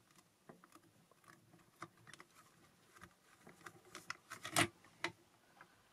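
Fingers pressing and rubbing on the closed acrylic lid of a stamping platform, working a rubber stamp onto the paper: faint scratching and small plastic ticks. A sharper click comes about four and a half seconds in and another half a second later.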